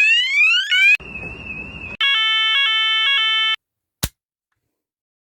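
Fire alarm sounder tones played one after another, each cut off abruptly. First comes a rising sweep tone that repeats within about a second, then about a second of a harsh buzzing tone, then an electronic tone pulsing about two and a half times a second. A single click about four seconds in.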